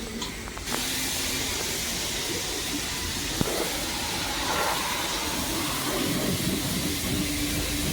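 Steady hiss of water spraying, starting abruptly about a second in and running evenly.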